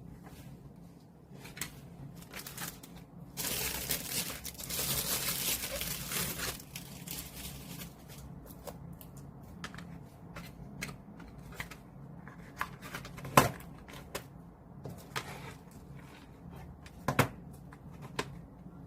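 Album packaging being unwrapped: plastic wrap and paper tear and crinkle for a few seconds, then light handling clicks and rustles as the contents are taken out, with two sharper knocks later on.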